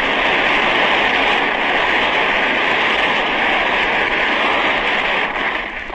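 A hall full of congress delegates applauding, as one dense, steady clatter of clapping on a 1935 recording, dying away near the end.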